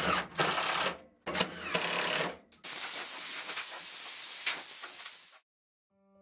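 Cordless impact driver running in two short bursts on the screws of a hairpin leg's mounting plate, then a compressed-air blow gun hissing steadily for about three seconds as it blows off the metal legs.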